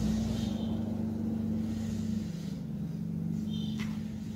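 A steady low mechanical hum, with a single sharp click near the end.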